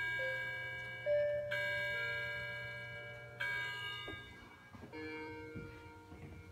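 Household clocks striking the hour: a bell-like strike rings out three times, about two seconds apart, each one ringing on and fading. Under the strikes, a lower chime moves through a few held notes.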